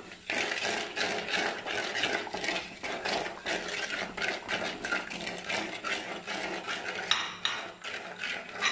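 A coconut-shell ladle scraping and stirring a wet ginger-garlic and mustard paste around an unglazed clay pot, in quick repeated strokes of about three a second. A brief high squeak comes about seven seconds in.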